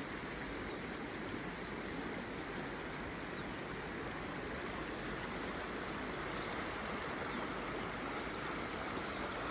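Steady rush of a flowing river, an even wash of water noise with no distinct events.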